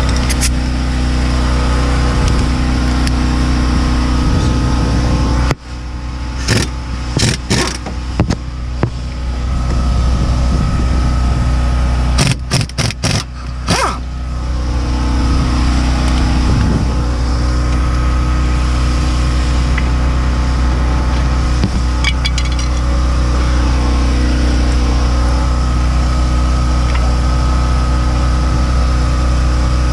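A steady low mechanical hum, like a running engine or motor, with two short clusters of sharp clicks and knocks: one at about six to eight seconds in, the other at about twelve to fourteen seconds in.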